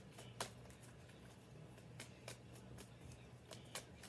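Faint, irregular clicks and light rustles of tarot cards being handled, over a low steady hum.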